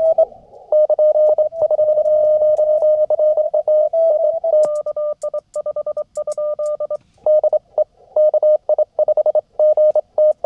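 Morse code (CW) from an amateur radio transceiver on the 20-meter band: one steady-pitched tone keyed on and off in quick dots and dashes, with faint receiver hiss in the short gaps.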